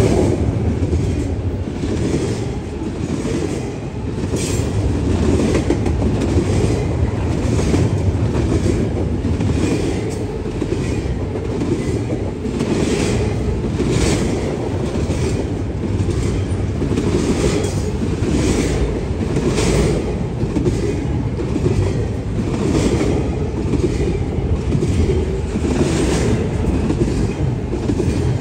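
Double-stack intermodal freight train of BNSF well cars rolling past at speed. A steady rumble of car wheels on the rails, with a regular clatter of wheel clicks about once a second.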